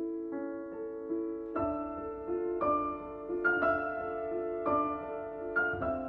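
Background piano music: gentle notes, with chords struck about once a second from about a second and a half in.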